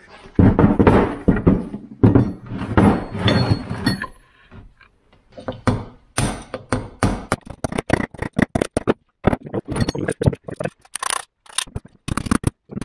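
Steel clattering and scraping as the Subaru center differential is handled and set into a steel fixture. Then comes a fast run of sharp hammer strikes on a punch against the differential's steel housing, several a second, driving the sealed, non-serviceable unit apart.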